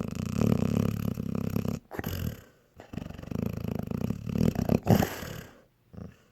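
Dog snoring: long, loud rattling snores drawn over each breath, three main snores with short pauses between and a brief one near the end.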